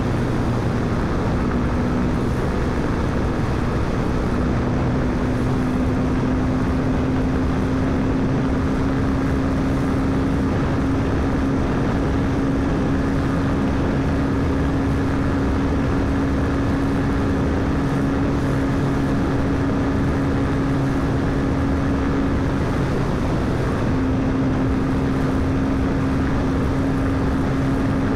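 Royal Enfield Himalayan 452's single-cylinder engine running steadily at high revs at flat-out expressway speed, its note rising slightly over the first several seconds and then holding, with a brief dip about three-quarters of the way through. A steady rush of wind runs underneath.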